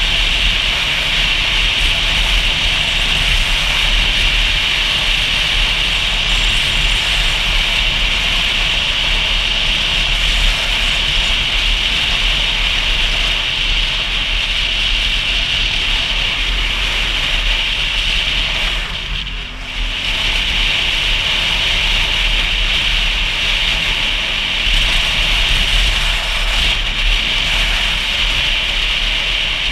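Steady wind and road noise from a motorcycle riding through town, with a low engine rumble underneath. The noise dips briefly about two-thirds of the way in.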